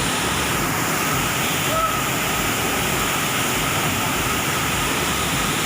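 Waterfall on a river, its water rushing steadily as an even, unbroken noise.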